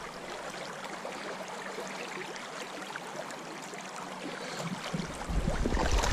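Shallow river water running steadily over stones, an even rushing hiss. About five seconds in, a louder low rumble of handling noise joins it as the net holding the fish is moved in the water.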